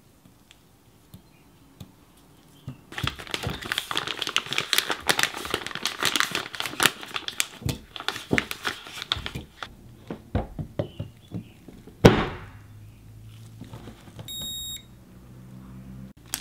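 Crackly scraping and clicking of yogurt and mango being put into a glass jar, dense for several seconds. Then a single sharp knock on the jar, a short high beep, and a click as a base is twisted onto the jar.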